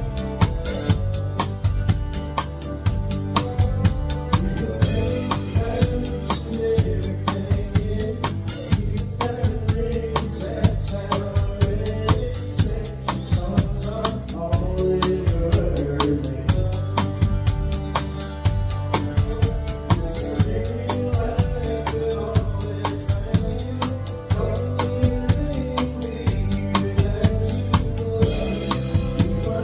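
A live country cover band playing, the drum kit up front: steady cymbal strikes with snare and bass drum from Ahead Crossroads XRS synthetic drumsticks, over bass and guitar. Cymbal crashes come about five seconds in and near the end.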